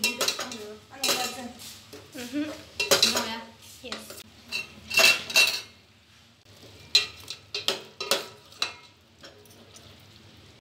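Steel ladle knocking and scraping against a stainless steel cooking pot as chicken curry is stirred, in irregular clusters of clanks with short metallic rings. The clanking thins out near the end.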